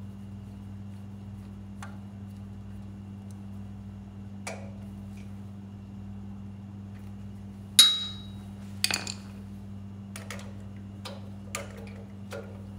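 Screwdriver and small metal parts clicking and clinking against a generator's carburetor and choke lever. The loudest is a sharp, ringing metal clink about eight seconds in, followed by several lighter clicks, all over a steady low hum.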